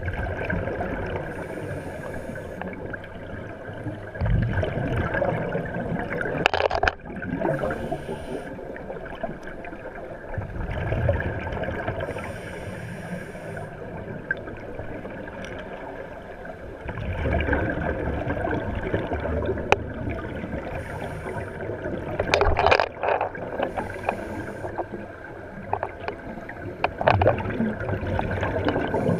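Scuba breathing heard underwater: hissing inhalations through a regulator alternate with gurgling bursts of exhaust bubbles, about every five or six seconds.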